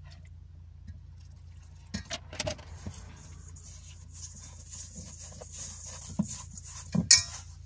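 Hands mixing a wet seed-and-flour dough in a stainless steel bowl, with soft squelches and clicks and one sharp knock against the bowl near the end, over the steady low hum of a van engine running.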